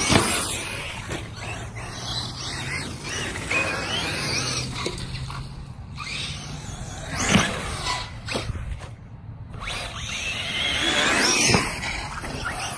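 Two 1/8-scale electric RC truggies, a TLR 8IGHT-T 3.0E and a Team Associated RC8T3.1e, their motors whining up and down in pitch as they speed across grass and jump a ramp. Sharp thuds from hitting the ramp and landing come at the start, about seven seconds in and near the end.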